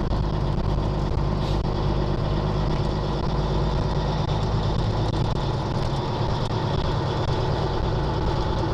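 Caterpillar diesel engine of a Peterbilt long-nose truck running steadily while the truck drives along, a constant low engine drone with no gear change.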